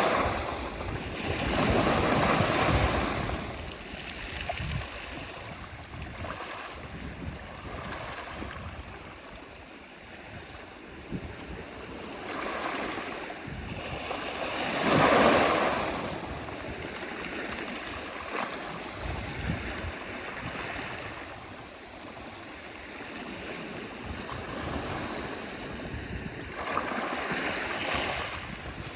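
Sea waves breaking and washing on the shore in slow surges, with one larger wave breaking about halfway through and smaller ones near the start and near the end.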